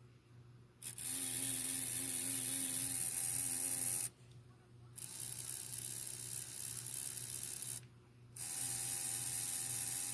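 Small electric motor and gears of a Trix N scale 4-6-2 locomotive whirring as it runs on a bench power supply, with freshly cleaned rotor contacts and brushes. It starts about a second in, stops and restarts twice, each stop under a second.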